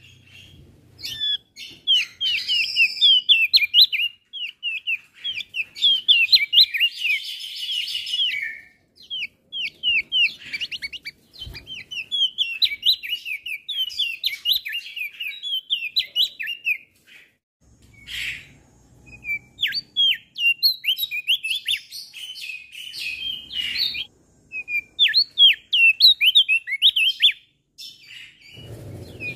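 A male opior jambul (crested white-eye) singing a fast, varied chattering song of high chirps and trills with short pauses, including a harsh buzzy phrase about seven seconds in.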